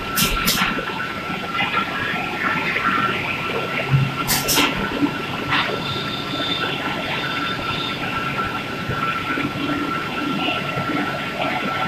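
Machinery running steadily with a constant whine. A pair of sharp, high clicks comes near the start and again about four seconds in.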